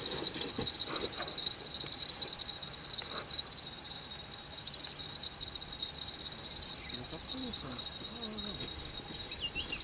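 Fishing reel's drag buzzing steadily as a hooked catfish on a run pulls line off the spool. The buzz starts suddenly after a click.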